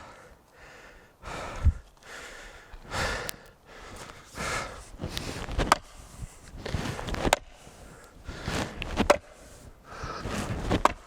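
A chopping axe biting into a log, about six strikes at a steady rhythm, one every one and a half to two seconds. Between the strikes the chopper breathes hard, gasping between swings.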